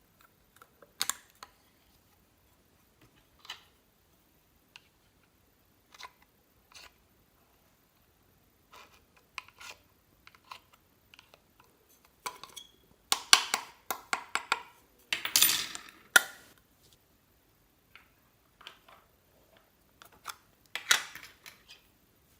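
Slime being mixed and squished by hand: scattered sticky clicks and crackles, with busier, louder runs of crackling a little past the middle and again near the end.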